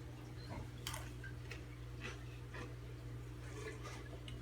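Faint, scattered crackles and clicks of someone eating spicy rolled tortilla chips (Takis), over a steady low hum.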